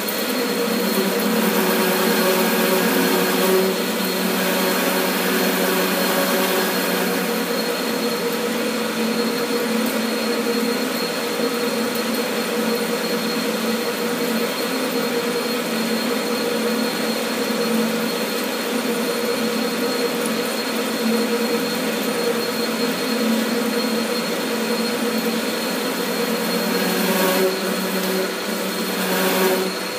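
Metal lathe running under a steady power-feed cut, a carbide insert turning a long steel bar with coolant flowing: an even mechanical whine with a high steady tone over it, swelling slightly near the start and again shortly before the end. The cut is one the machinist finds has started to chatter.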